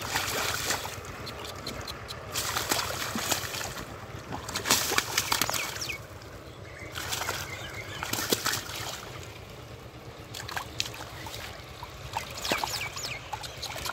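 Shallow muddy water sloshing and splashing in repeated bursts, a few seconds apart, as hands grope in it and grab and lift a large catfish.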